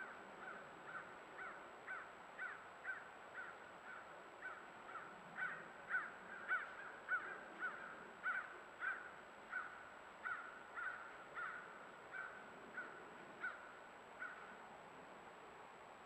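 An animal calling a long, regular series of short, sharp notes, about two a second, growing louder toward the middle and stopping shortly before the end.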